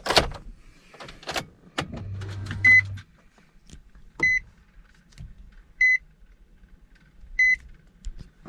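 Car interior: a few clicks and knocks and a brief motor hum, then a car's warning chime beeping four times, evenly about a second and a half apart.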